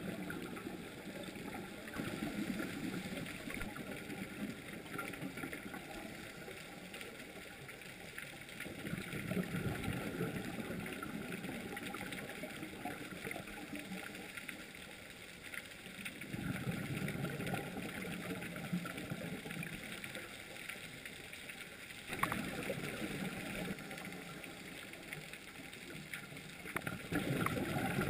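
A scuba diver's regulator breathing, heard underwater: bubbling exhalations every five to seven seconds over a steady hiss.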